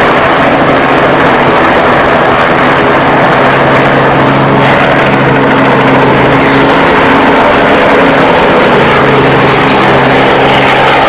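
Robinson R22 helicopter running close by: the engine and rotors make a very loud, steady noise with a low hum underneath.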